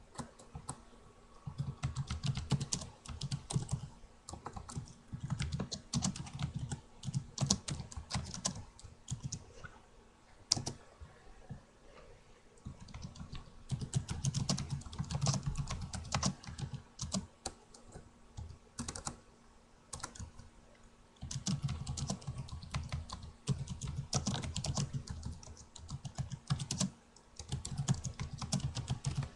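Typing on a computer keyboard: quick runs of key clicks lasting a few seconds each, broken by short pauses.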